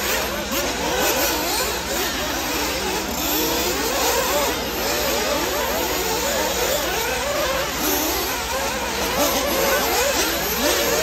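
Several radio-controlled off-road racing buggies running around a dirt track, their motors whining and repeatedly rising and falling in pitch with overlapping tones as they accelerate and back off.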